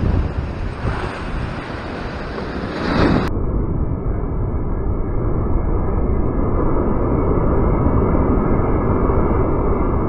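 Ocean surf crashing against a rock ledge, with wind buffeting the microphone. About three seconds in a big wave breaks and sends spray over the camera; the crash and its wash grow louder and stay loud, and the sound turns muffled from then on.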